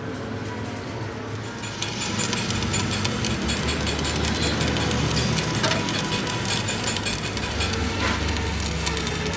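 Electric arc welding on a cracked steel truck rear axle housing: a steady crackling sizzle from the arc, which gets louder about two seconds in.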